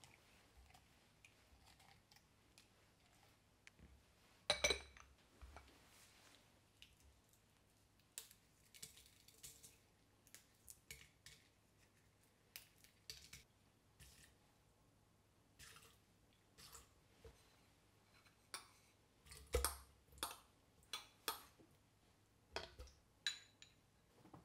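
Kitchen handling sounds during cooking prep: scattered light clicks and knocks of dishes and utensils, with a louder knock about four seconds in and a run of louder knocks near the end.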